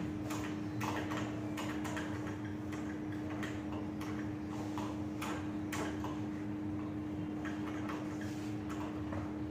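Marker pen writing on a whiteboard: a run of short, irregular scratchy strokes and taps, a few a second, over a steady low hum.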